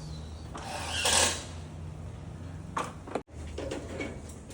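A steady low motor hum, with a short rattling clatter about a second in; the sound cuts out suddenly for an instant a little past three seconds, then the hum carries on.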